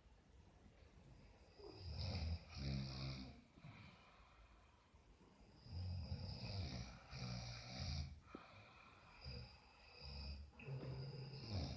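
Several sleeping people snoring, with deep, rough snores coming in irregular bursts.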